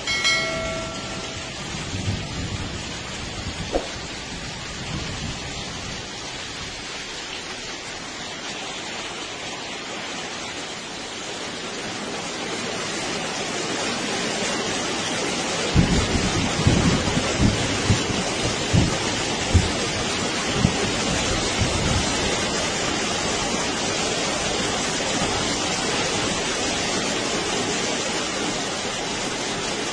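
Steady heavy rain falling, its hiss growing a little louder partway through. A run of short low thumps comes a little past the middle.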